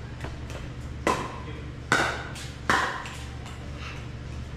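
Pickleball paddles striking a hard plastic pickleball in a fast rally: three sharp pops less than a second apart, each ringing briefly in the large hall, with fainter clicks of ball and footsteps between them. A steady low hum sits underneath.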